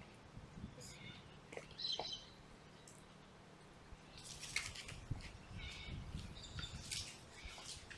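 Faint bird chirps: several short, high calls scattered through a quiet lull.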